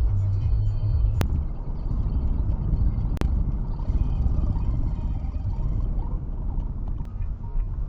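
Steady low rumble of a car on the move, its road and engine noise picked up by a dashcam. Two sharp clicks stand out, about a second in and again about three seconds in.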